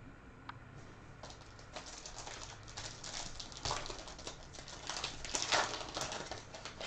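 Hands handling trading cards and their foil pack wrappers: a quick run of crinkles and card-against-card rustle. It is sparse at first, then gets busier and louder over the last few seconds.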